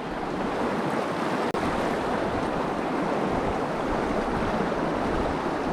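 Steady rush of a flowing mountain stream, with some wind on the microphone.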